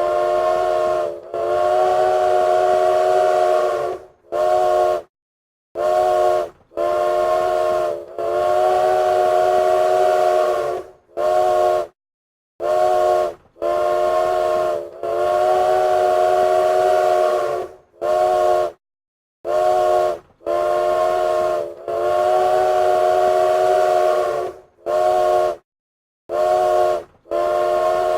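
Train whistle blowing a long series of blasts, some about three seconds long and others short toots, with brief gaps between them. Several pitches sound together as one chord, with a breathy hiss over them.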